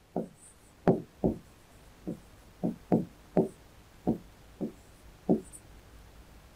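A marker pen knocking against a writing board as lines and figures are drawn: about ten short, sharp taps at uneven spacing over the first five seconds.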